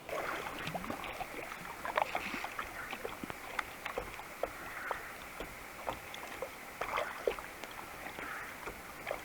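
Kayak being paddled: a paddle dipping and splashing in the water about every two seconds, with small drips and ticks in between.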